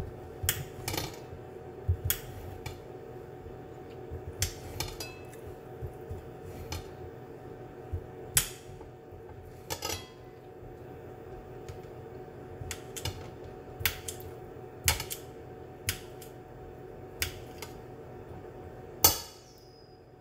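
Knife clicking and clinking against a plate as sausages are cut and moved about, in irregular sharp taps, over a steady low hum. Near the end comes one louder clink that rings briefly.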